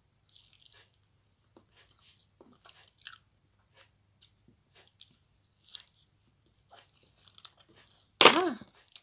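Soft wet mouth sounds of chewing avocado: scattered small clicks and smacks. Near the end comes a short, loud vocal cry, a reaction to the burn of the hot chili.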